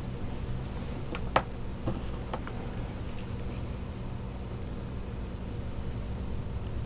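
A few light clicks and taps, the loudest about a second and a half in, from small tools and a tiny diecast model car being handled, with faint scratching strokes, over a steady low hum.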